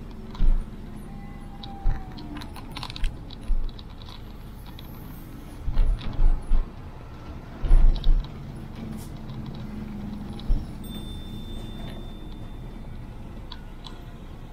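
Vehicle driving downhill: a steady engine and road hum with light rattling and clicking, and repeated low thumps, the heaviest about six and eight seconds in.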